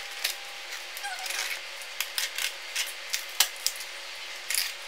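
Cardboard shipping box being opened: a blade slitting the packing tape, with irregular sharp scrapes and clicks and the cardboard flaps rustling as they are pulled open.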